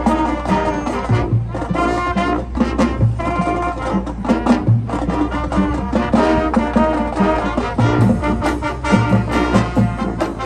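High school marching band playing its competition show: full brass section with trumpets and trombones over drums, loud and rhythmic.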